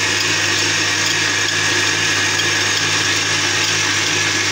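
Kenwood stand mixer running steadily at speed, a constant motor hum as its whisk beats egg whites in a stainless steel bowl until foamy.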